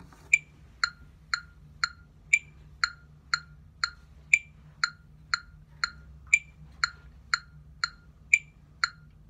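Metronome clicking steadily at about two clicks a second, with a higher-pitched accented click on every fourth beat, counting in before a tuba lip slur exercise.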